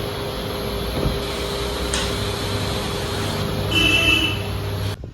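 Steady machine running noise with a low hum and a sharp click about a second in. A short high-pitched beep sounds near the four-second mark, and the noise cuts off abruptly just before the end.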